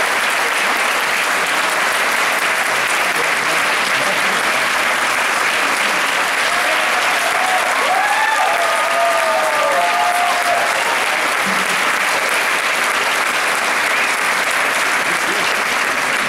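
Theatre audience applauding steadily, with a few brief cheers rising above the clapping around the middle.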